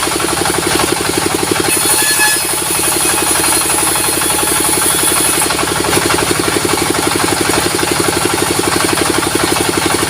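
Sawmill's stationary diesel engine running steadily with a fast, even pulsing beat, with a high hiss over it that drops out briefly about a second in and again past the halfway mark.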